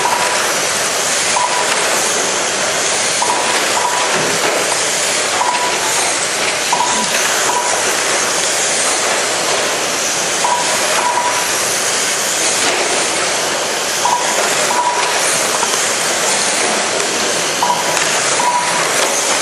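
Quarter-scale RC race cars' engines buzzing steadily as the cars lap the track, heard as a continuous hissy drone. Short beeps at one pitch sound over it, singly and in pairs, every second or few.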